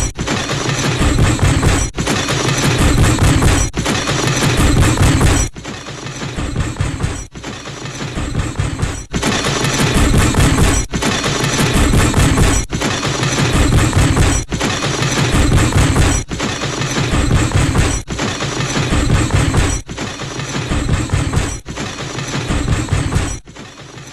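The MGM elephant smash cartoon sound effect: a dense crash of smashing, splintering debris with many sharp cracks. It is played as a string of clips about two seconds long, each cut off abruptly and the next starting straight after.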